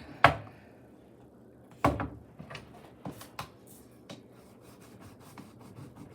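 Knocks and clicks of a Rubik's-style cube's packaging being pried and worked at while it refuses to open: a sharp knock about a quarter second in, another just before two seconds, then lighter scattered taps and clicks.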